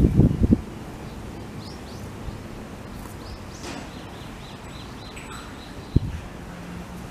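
Outdoor ambience: low rumbling bursts in the first half second, then a small bird chirping a quick series of short high calls, and a single low thump about six seconds in.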